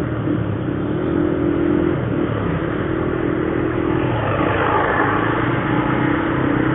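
Motorcycle riding in slow traffic: a steady engine hum with wind and road noise.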